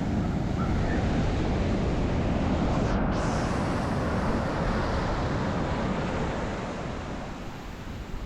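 Sea surf washing onto the beach, with wind buffeting the microphone; the surf eases off near the end.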